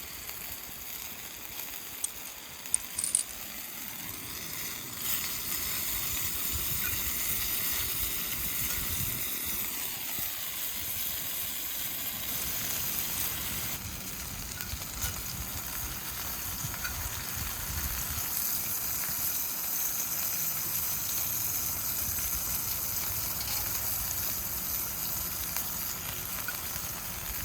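Food sizzling in hot oil in a pan over a campfire: a steady frying hiss that swells about five seconds in and holds. A few light metallic clicks come just before it swells.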